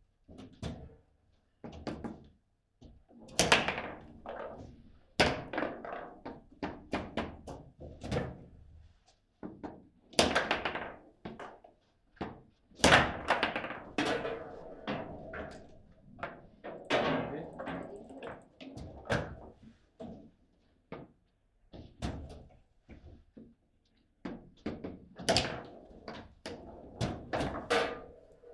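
Table football in play: sharp knocks and thuds of the ball being struck by the player figures and hitting the table, coming in irregular flurries, the loudest about 3 and 13 seconds in, with a brief lull about 24 seconds in.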